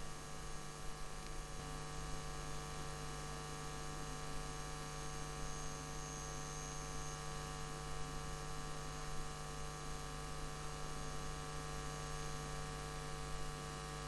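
Steady electrical mains hum with many buzzing overtones and a faint hiss underneath, picked up by the recording microphone.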